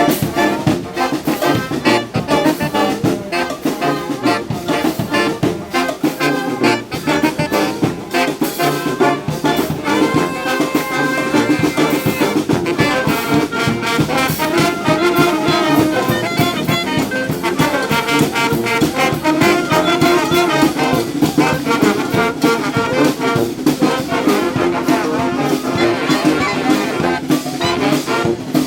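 Street brass band playing live: trumpets and trombones together over a steady beat of sharp percussive hits.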